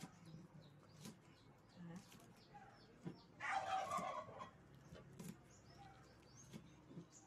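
Kitchen knife tapping on a wooden chopping board in scattered single strokes while slicing spring onions. About three and a half seconds in, a domestic fowl calls once for about a second, louder than the chopping.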